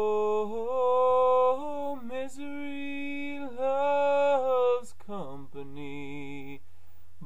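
Wordless a cappella male singing: long held notes that bend slowly in pitch, sliding sharply down to a lower note about five seconds in.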